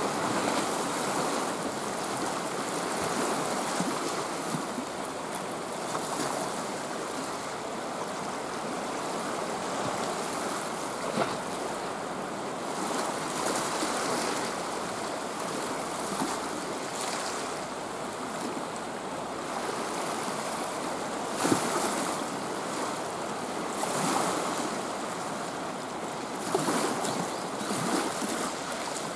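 Sea waves washing against a breakwater, a steady rush of surf that swells and eases every few seconds, with a few sharper splashes, one about eleven seconds in and two more in the second half.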